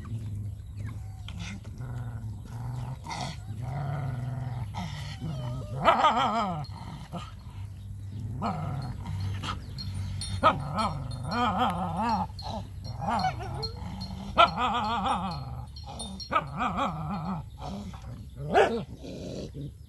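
Dogs growling and snarling in wavering bouts, with a few sudden louder outbursts, as they squabble and guard a shared food bowl.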